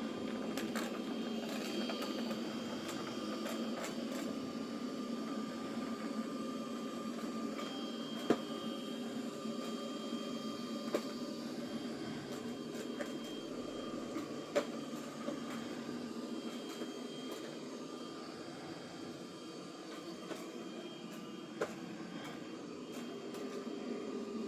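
Roborock Saros Z70 robot vacuum running steadily, its motor and brushes giving a constant hum with a few faint whining tones. A handful of short, sharp clicks stand out, about eight, eleven, fourteen and a half, and twenty-one seconds in.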